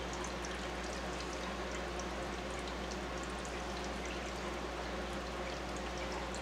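Aquarium water steadily trickling and bubbling from the tank's air bubbles and filter return, with tiny bubble pops and a low steady pump hum underneath.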